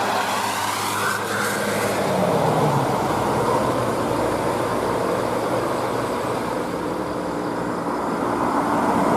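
Road traffic passing at a steady level: vehicle engines and tyre noise on the road.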